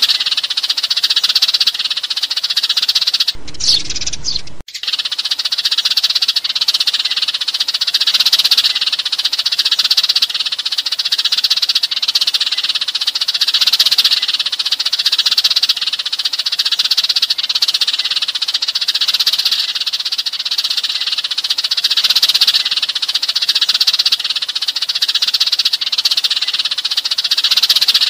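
Dense, continuous chattering chorus of many sparrows chirping together, a flock-calling lure recording. About four seconds in, the chirping drops out for roughly a second and a dull low sound briefly takes its place.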